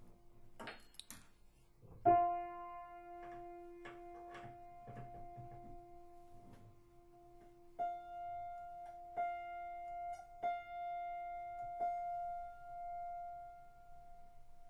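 Background music of slow, ringing keyboard-like notes, each held for several seconds; a loud note is struck about two seconds in, and several more follow one after another from about eight seconds in.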